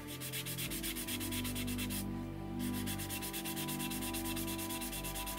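Sanding pad rubbed briskly back and forth over a putty-filled seam on a plastic model fuselage, many quick scratchy strokes a second, with a short pause about two seconds in. The sanding smooths dried acrylic filler flush with the seam line. Soft background music plays underneath.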